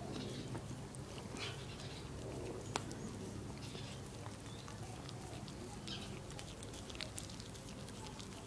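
Shetland sheepdog licking a hard lollipop: soft wet lapping and scattered tongue clicks, with one sharper click about three seconds in.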